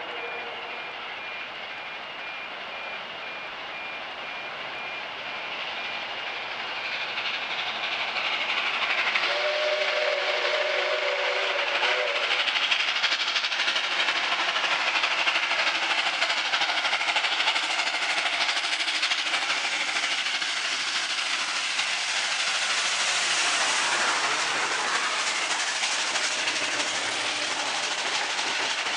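A heritage steam special led by NSW 59 class locomotive 5917 approaches and runs through the station. Its whistle sounds for about two seconds around ten seconds in, then a loud steady rush of locomotive and carriages passing builds and holds to the end.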